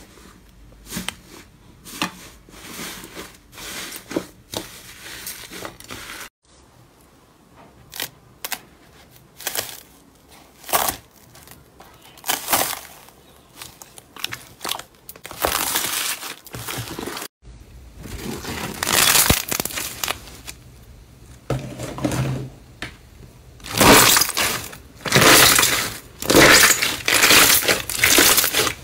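Hands pressing, squashing and squeezing slime: soft cloud slime, foam-bead slime and clear glitter slime. The result is irregular crackles and squishy bursts in groups, louder in the last third.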